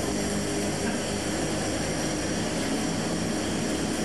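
Steady mechanical drone with a low hum, unbroken, with no knocks or sudden events.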